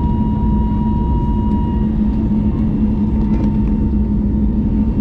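Cabin noise of an Airbus A321neo airliner climbing out after takeoff: a steady engine and airflow roar with a low hum and a thin whine that weakens about two seconds in.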